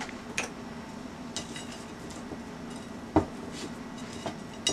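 A few scattered light knocks and clinks on a ceramic plate as a raw T-bone steak is moved and patted on it, the loudest a little past halfway, over a faint steady hum.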